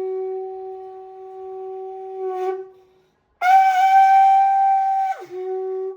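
Conch shell (shankha) blown in long held notes. The first blast fades out about two and a half seconds in. After a brief pause a second, louder blast sounds an octave higher, then slides down and holds the lower note.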